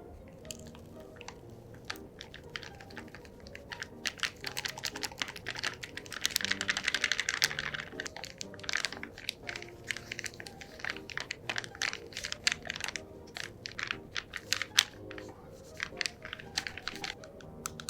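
Close-up handling of kit packaging and small parts: an irregular run of sharp clicks and taps, with a stretch of rustling about six seconds in, over soft background music.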